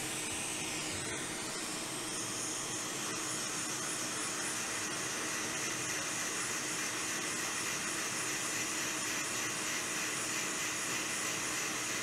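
Hot air rework station blowing a steady hiss of air, with a faint steady hum underneath, while it reflows a replacement battery connector onto a phone logic board.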